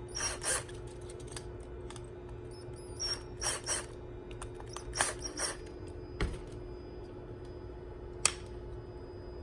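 Small screws being loosened on the bottom of a 22mm push button switch: short scraping, rattling sounds in a few clusters and a sharp click near the end. A steady low hum runs underneath.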